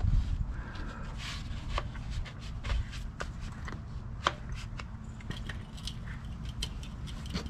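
Hands handling a sheet against a steel axle tube, making light rustles, scrapes and scattered irregular clicks over a steady low rumble.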